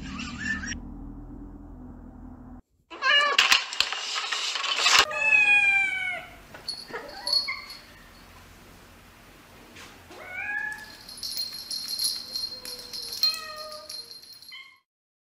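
Domestic cats meowing, several separate meows across a string of short clips cut abruptly together, the longest a drawn-out falling meow about five seconds in.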